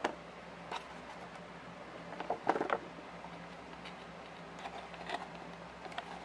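Scattered light clicks and crackles of toy packaging being handled and opened, with a short flurry about two and a half seconds in and another around five seconds.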